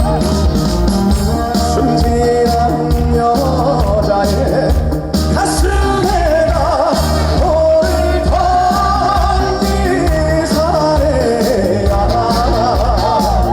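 Live trot song: a male singer with wavering vibrato over band accompaniment with a steady beat.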